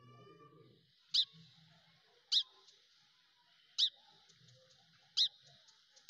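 A small animal chirping: sharp, loud, high chirps repeated every second or so, about five times, over a faint steady high hiss.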